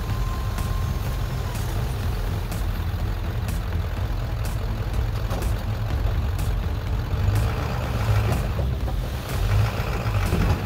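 1996 Ford F-Super Duty dump truck's 7.3 diesel engine running steadily with the dump bed raised, while the load of soil and stones slides out past the open tailgate, the rush of dirt growing louder near the end.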